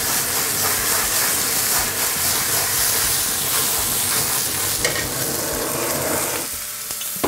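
Lamb pieces sizzling hard in a very hot frying pan that is flaring with flame, while a handheld butane torch blows onto the meat. The sizzle eases near the end.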